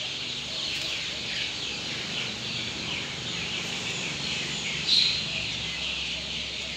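Dense, continuous peeping of many young chicks, with one louder cheep about five seconds in, over a faint low steady hum.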